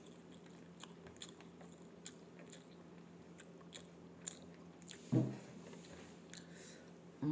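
A person chewing a mouthful of rice and fried tempe, with many small wet mouth clicks picked up close by a clip-on microphone. A brief hum of the voice comes about five seconds in.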